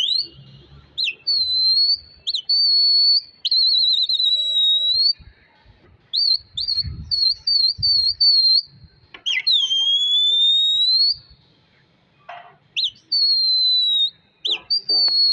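Loud, shrill human whistling at a flock of pigeons in flight: a string of long gliding whistles, some falling and some dipping then rising, broken by short chirps and a few warbling trills, with a pause of about a second near the end before it resumes.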